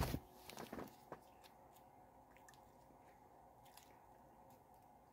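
Faint wet smacking and clicking of bubble gum being chewed, a short louder cluster in the first second, then a few soft scattered clicks.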